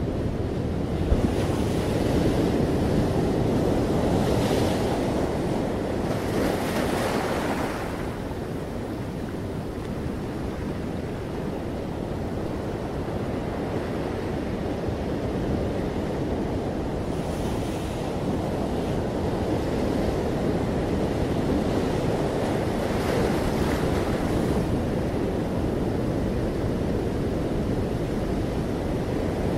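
Ocean surf breaking and washing up a sandy beach among rocks: a continuous rush of waves that swells three times into a louder hiss of running foam.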